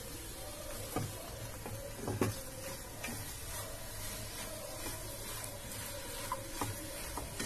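Wooden spatula stirring and scraping a thick, crumbly chana-dal-and-sugar-syrup mixture in a non-stick kadai, with a few light knocks against the pan, over a faint steady sizzle from the pan on the flame.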